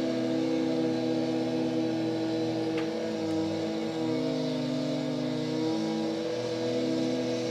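Engine of road-construction machinery running at a fairly steady speed, its pitch shifting slightly up and down a few times.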